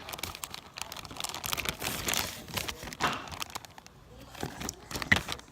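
A plastic bag crinkling while sticky homemade slime is squeezed and worked by hand, giving a steady run of quick small crackles and rustles.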